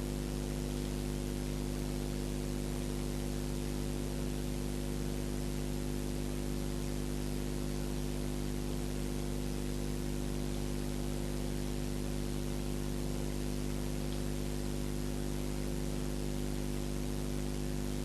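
Steady hum made of several constant low tones over an even hiss, unchanging throughout, with no other sound.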